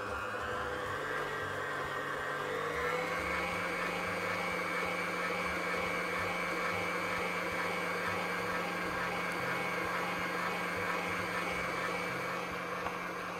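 Electric stand mixer running steadily as it beats a cream cheese and condensed milk batter with eggs. Its motor whine rises in pitch over the first few seconds as it speeds up, then holds steady.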